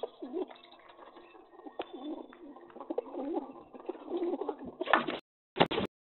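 Pigeons cooing: low, repeated rolling calls overlapping one another. Near the end comes a loud, short burst of noise, then the sound cuts off suddenly before another brief loud burst.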